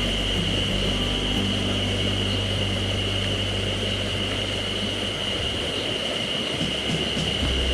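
Steady rushing of a small mountain stream, with a constant high-pitched hum running over it and low sustained background-music notes that shift every second or two.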